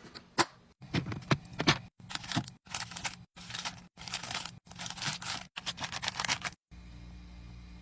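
Packaged items being handled and set down: crinkling and scraping of wrappers with light taps, in short snippets separated by abrupt cuts. Near the end this gives way to a steady low hum.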